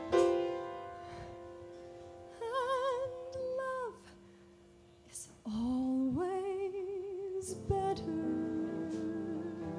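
Soft, slow female singing in a musical-theatre ballad, with long held notes and a wide vibrato over piano accompaniment. A piano chord rings out at the start, and the music nearly stops for a moment about halfway before a long sustained note.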